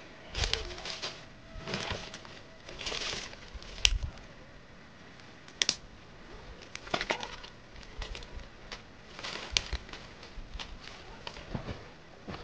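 Dry leaves and twigs rustling and crunching as they are handled and laid as kindling for a fire, in irregular bursts with a few sharp snaps or clicks.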